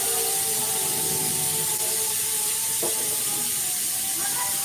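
Pressure cooker whistle releasing steam: a loud, steady high hiss with a faint steady tone beneath it.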